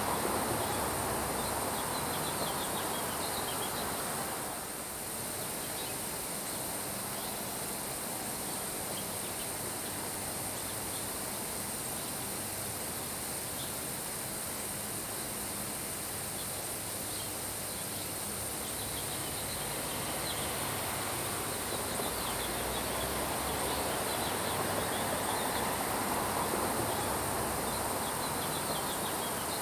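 Summer rain shower falling on grass, with wind: an even hiss that dips about five seconds in and swells again near the end. Faint high chirps sound through it.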